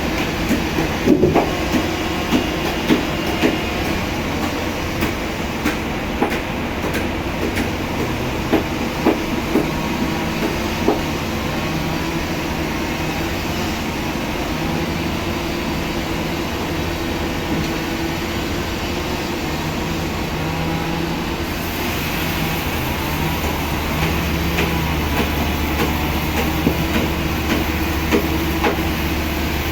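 Heavy machinery running steadily, with scattered clanks and knocks that are thickest in the first ten seconds; the low hum shifts about two-thirds of the way through.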